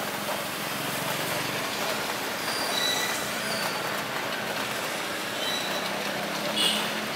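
Steady rushing noise of heavy rain mixed with airliner jet engines running at low power while taxiing. A few brief high-pitched squeaks come through about the middle and again near the end.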